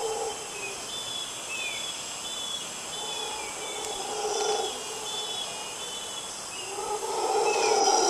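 Rainforest ambience: birds calling in short, repeated high notes with a few falling whistles, over a steady high insect drone and a lower sound that swells and fades every second or two.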